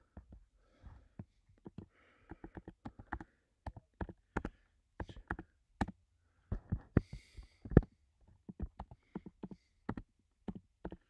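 Typing on a computer keyboard: irregular key clicks, with one louder knock about eight seconds in.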